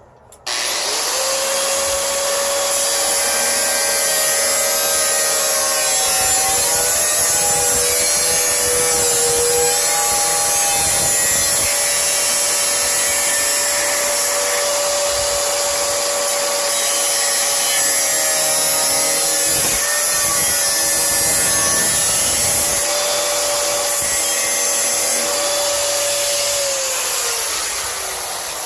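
Angle grinder with a cut-off disc cutting through stainless steel sheet: it spins up sharply, holds a steady high whine over a harsh hiss whose pitch dips slightly as the disc bites, and near the end is switched off and winds down.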